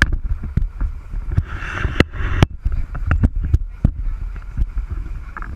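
Wind buffeting the microphone over a boat's low engine rumble on an open sportfishing deck, with scattered sharp clicks and knocks, likely rod or reel handling, and a short shout about one and a half to two and a half seconds in.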